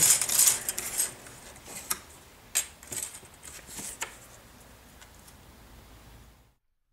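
Small plastic model-kit parts clicking and clattering as they are sorted and picked up on a cutting mat: a flurry in the first second, then a few scattered single clicks over faint room tone. The sound cuts off to dead silence near the end.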